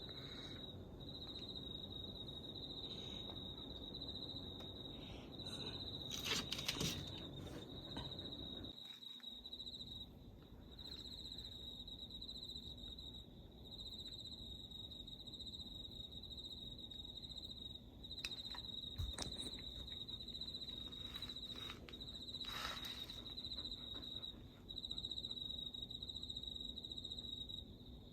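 Crickets trilling in a steady, high, slightly pulsing chorus at night. A few brief rustles and knocks come and go over it.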